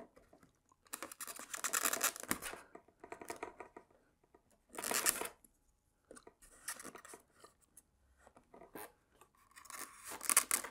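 Small plastic parts scraping and clicking against an EPO foam model airframe as they are pushed into molded slots: irregular rustling scrapes with a few clicks, the loudest about five seconds in.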